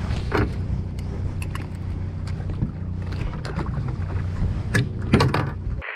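A charter boat's engine running steadily with a low hum, with several sharp clicks and knocks of gear being handled on deck.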